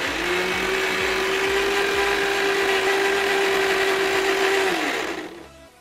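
Electric mixer grinder with a steel jar grinding spinach leaves with a little water into juice. The motor starts at once into a steady whine, runs for about five seconds, then winds down and stops.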